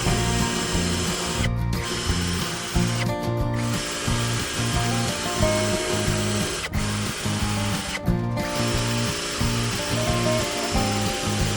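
A power tool running, with background music over it.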